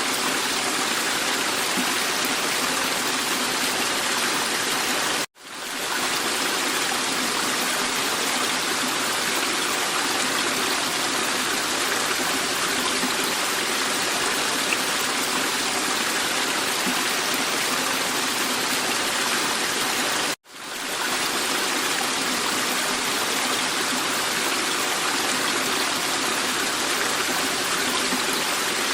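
Bachkovo waterfall, a ten-metre fall whose water spills down in many small branches: a steady rush of falling water. Twice the sound drops out for an instant and fades back in.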